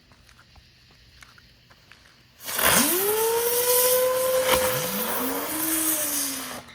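Two whistling ground-spinner fireworks going off about two and a half seconds in, with loud hissing. The first whistle rises and holds steady; a second, lower whistle rises about two seconds later and sinks near the end, and both cut off together.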